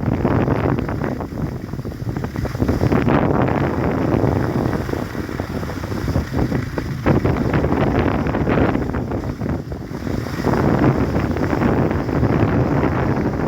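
Wind buffeting the microphone: a loud, uneven rumble that swells and dips throughout.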